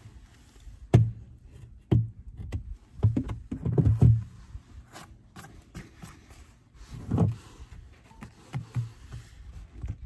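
Irregular knocks and bumps as wooden hive frames are lifted, set down and moved in a wooden hive box, with light taps from a metal hive tool. The knocks come in a cluster a few seconds in and again near the end.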